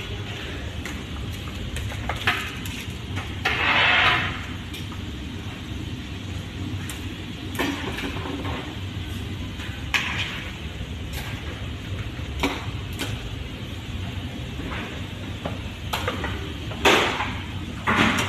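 Hand-pump pressure sprayer spraying insecticide in short hissing bursts: one about four seconds in and two near the end. Underneath are a steady low hum and scattered light knocks.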